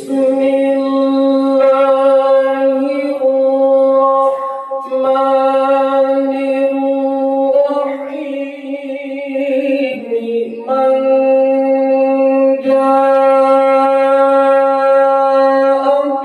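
A man reciting the Qur'an in the melodic qari style, holding long high notes with a steady pitch. Short breaths break the notes, and he sings a wavering, ornamented run about halfway through.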